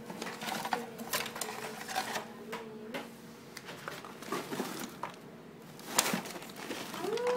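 Handling noise from a balsa model-airplane kit: irregular clicks, taps and rustles as parts, paper and scissors are picked up and moved about, with a sharper knock about six seconds in. A low steady hum is there for the first three seconds.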